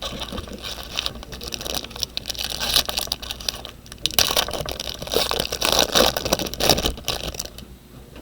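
Crinkling and tearing of a foil trading-card pack wrapper being ripped open by hand: dense, irregular crackling that stops shortly before the end.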